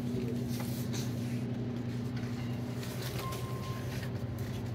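Steady low hum of a store interior's electrical and cooling equipment, with a short single beep a little over three seconds in.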